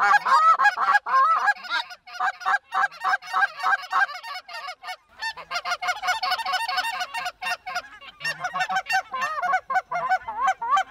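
A large flock of Canada-type geese calling overhead: a dense, overlapping chorus of quick, high honks and yelps that thins out briefly about four to five seconds in.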